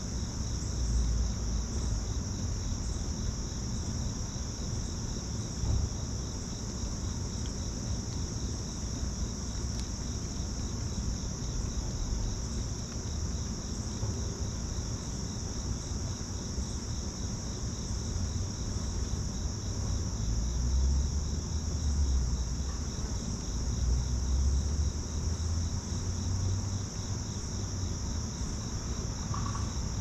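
Steady late-summer insect chorus: a continuous high-pitched trill with a faint regular pulsing beneath it. An uneven low rumble runs underneath.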